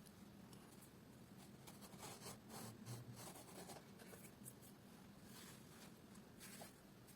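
Near silence with faint light scraping and rubbing sounds, bunched about two to four seconds in, over a faint steady low hum.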